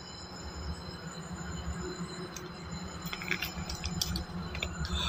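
Faint rustling and low rumbling from someone moving about in the dark, with a few light clicks about three to four and a half seconds in.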